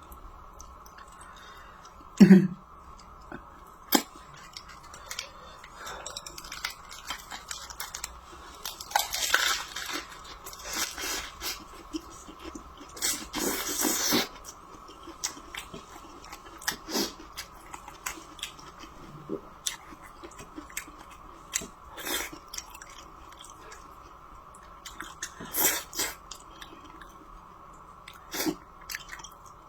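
A person chewing food close to the microphone: scattered short smacks and clicks of eating, with a couple of longer noisy bursts, over a faint steady hum.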